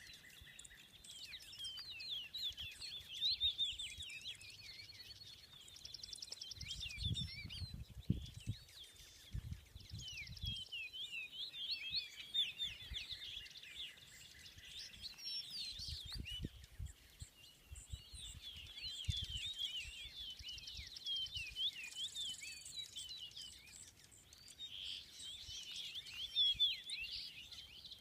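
A flock of migrating songbirds chirping and singing together in a dense, continuous chorus of many overlapping chirps and trills. Low rumbles come in twice, around seven and sixteen seconds in.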